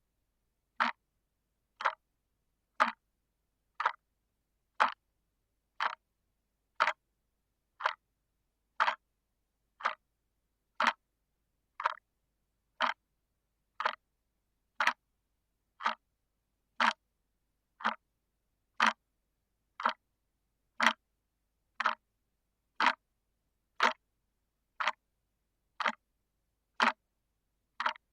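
Quartz clock movement ticking once a second, each step of the second hand a sharp, dry click with silence between, picked up through a contact microphone on the clock.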